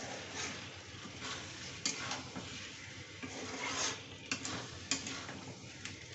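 Metal spatula stirring chicken curry in a metal kadai over a gas flame, scraping against the pan at irregular moments while the thick masala sizzles.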